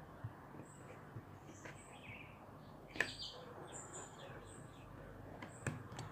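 Faint, high, short bird chirps repeating in the background, with a few sharp clicks, the loudest about three seconds in.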